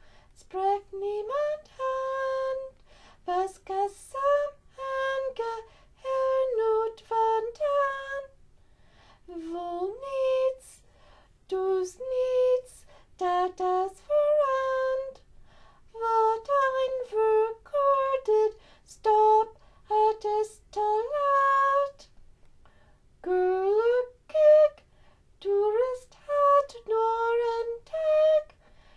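A female voice singing a song in Dutch with no accompaniment, in short phrases with brief pauses between them, sliding up into many of the notes.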